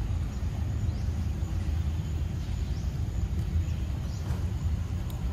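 Steady low rumble of outdoor background noise, with a few faint short high chirps over it.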